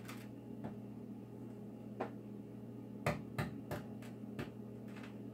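Hard-boiled eggs being tapped on a tabletop to crack the shells: a few scattered sharp taps, then a quick run of five taps, about three a second, a little after three seconds in.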